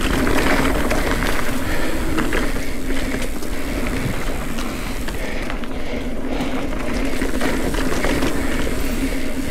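Ibis Ripley mountain bike rolling along a dirt trail: steady tyre noise with the frame and parts rattling over small bumps, and wind on the camera's microphone.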